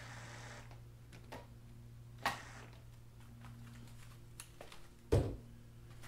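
A cordless drill finishes driving a screw into a trailer bunk end cap and stops under a second in. Handling clicks and a sharp knock follow, then a heavy thud a little past five seconds, over a steady low hum.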